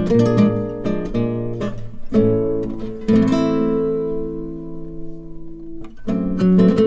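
Background music: acoustic guitar picking single notes, with a chord left ringing for a few seconds in the middle before the picking resumes.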